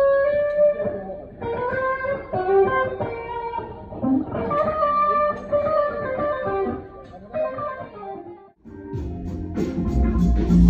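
Electric guitar playing a melodic single-note line on its own. Near the end it briefly drops out, and the full band comes back in with bass and drums.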